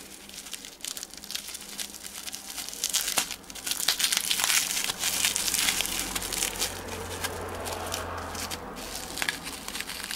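Plastic bubble wrap crinkling and rustling in irregular crackles as a wrapped item is handled and lifted out of a packed shipping box.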